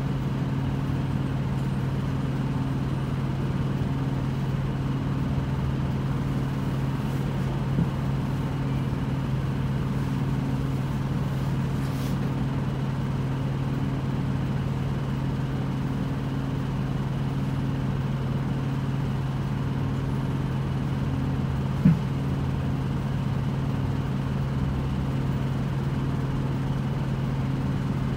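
Interior running sound of an Isuzu Erga diesel city bus: a steady low engine drone holding one pitch throughout, with a short knock about 22 seconds in.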